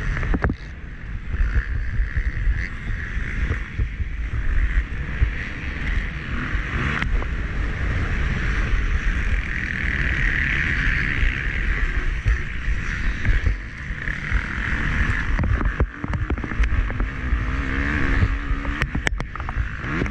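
Motocross dirt bike engine running hard during a race, heard through an onboard camera, with heavy wind buffeting on the microphone. Near the end come a few sharp knocks and a rising engine pitch.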